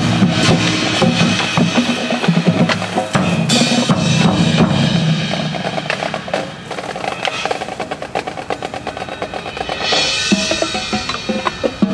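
High school marching band playing, brass and drum line together. About six seconds in, the brass falls away and the drums carry on with fast snare and bass drum strokes, growing brighter and louder again near the end.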